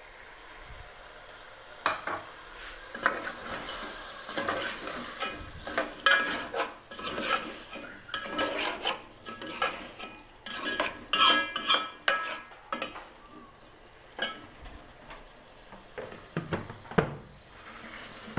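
A metal spoon stirring and scraping beef and tomatoes in an aluminium cooking pot, with irregular clinks and scrapes of metal on metal over a light sizzle of frying in oil. The tomatoes are being fried down until they soften.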